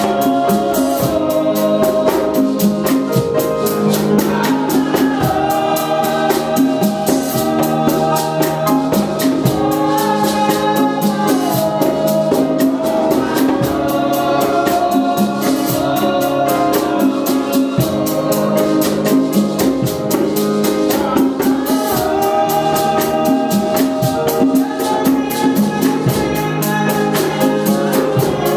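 A small group of voices singing a gospel song, led by a woman on a microphone, over congas keeping a steady beat.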